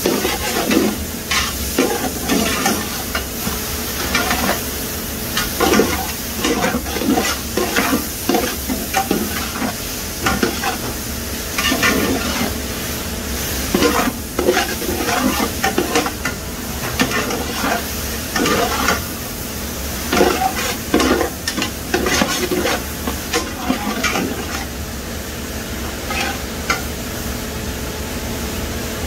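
A flat metal spatula scrapes and stirs grated cauliflower, carrot and chopped capsicum around a large aluminium pot in irregular strokes. The vegetables sizzle in hot oil as they sauté.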